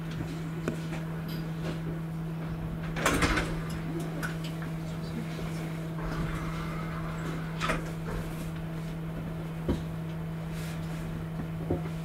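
A steady electrical hum with a few scattered knocks and clunks, the loudest a short cluster of knocks about three seconds in.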